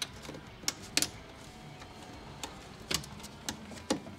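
Plastic car trim clicking and tapping as a rear spat is worked against the mud flap and its bracket by hand: a handful of sharp clicks at uneven intervals, the loudest about a second in, near three seconds and near the end.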